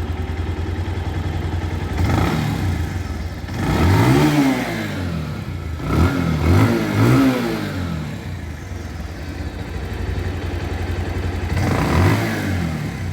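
Bajaj Pulsar single-cylinder motorcycle engine idling steadily and being revved in short throttle blips, three in quick succession in the middle. The engine has just been rebuilt with new valves, its valve clearance set slightly wide, and runs clean, 'A class'.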